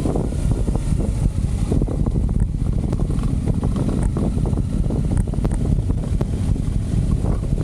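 Wind buffeting the microphone on a moving motorcycle, over a steady low rumble of the bike running.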